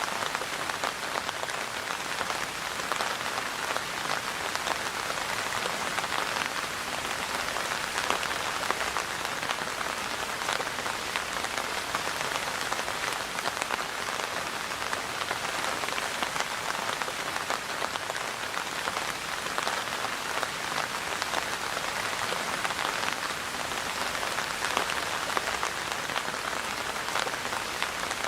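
Steady rain falling: a dense, even patter of many small drops that does not let up.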